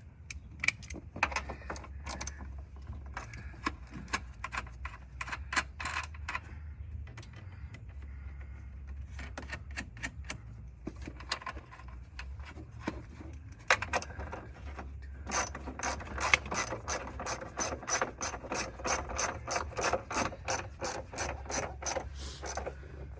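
Ratchet wrench clicking on bolts during a car battery swap: short irregular runs of clicks, then about two or three clicks a second kept up for the last seven seconds or so.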